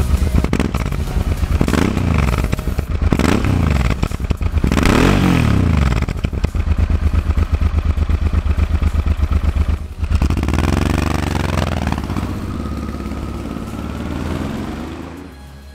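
Honda Transalp's V-twin engine running, blipped four times in the first six seconds with the revs rising and falling. About ten seconds in it pulls away and rides past, its pitch rising and then falling, and the sound fades near the end.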